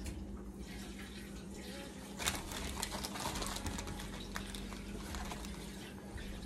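Faint steady kitchen background hiss with a low hum, and a scattering of light clicks and taps from about two seconds in.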